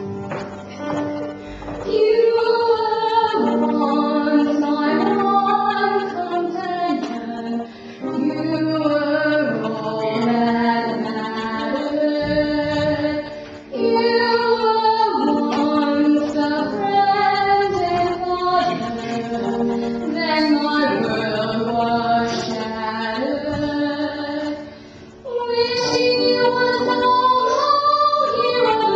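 A woman sings a song to grand piano accompaniment. The piano plays alone at first, and her voice comes in about two seconds in. She sings in phrases several seconds long, with short breaks between them.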